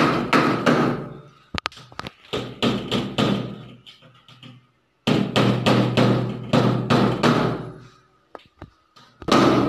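Rapid hammer blows on a wooden door, about four a second, in runs of a few seconds broken by short pauses.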